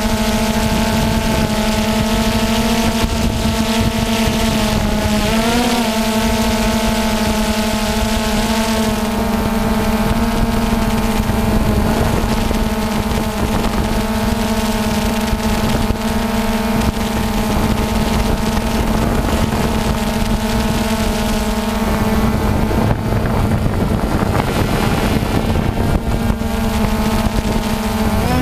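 A vehicle engine droning at a steady, even pitch as it drives along a dirt road, over a low rumble. The pitch wavers briefly about five seconds in and grows less steady near the end.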